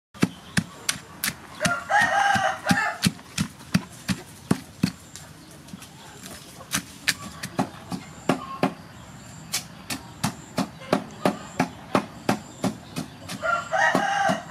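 Wooden pestle pounding crab paste in a wooden mortar, a steady knock about two to three times a second. A rooster crows twice, about two seconds in and again near the end.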